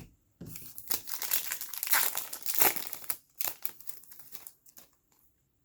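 Plastic wrapping crinkling as trading cards from an opened pack are handled, dense for about three seconds, then a few short crinkles before it goes still near the end.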